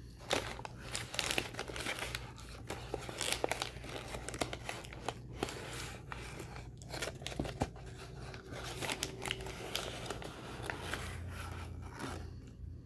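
Paper inner bag of an Argo cornstarch box being crinkled and torn open by hand, with irregular crackling and sharp rustles that stop shortly before the end.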